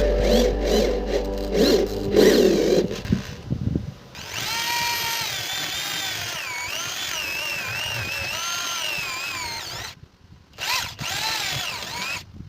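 Background music for the first three seconds, then a small power tool's electric motor whining, its pitch wavering up and down as it runs. It cuts out about ten seconds in and starts again briefly.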